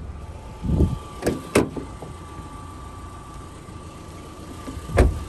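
Clicks and thumps of a 2009 Subaru Forester's rear side door being handled and opened: a few short clicks soon after the start and a louder thump near the end, with a faint steady tone from about a second in.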